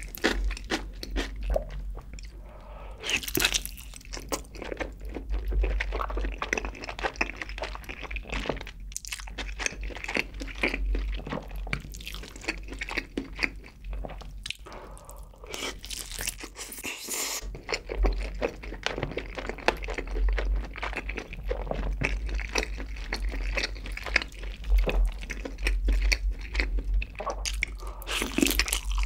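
A person biting and chewing a barbecue-glazed grilled chicken leg dipped in cheese sauce, close to the microphone: a dense, uneven run of small mouth clicks and bites.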